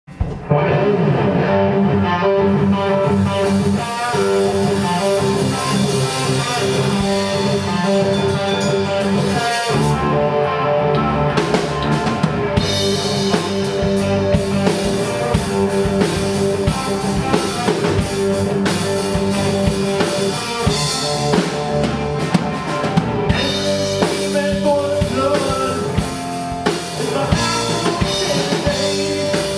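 Live rock band playing: electric guitars, bass guitar and drum kit, loud and steady.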